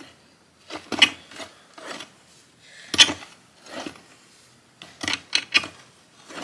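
Hand auger post hole digger scraping and grinding through gravelly soil, its metal blades rasping against stones in a string of separate, uneven strokes as it is turned.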